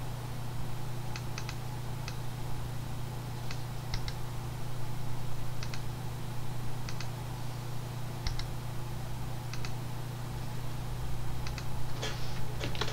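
Scattered key clicks from a computer keyboard, mostly in quick pairs and threes and a little busier near the end, over a steady low hum.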